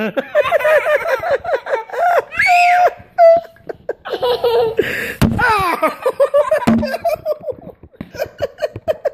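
Children laughing hard and giggling in quick, repeated high-pitched bursts, with a single sharp knock about five seconds in.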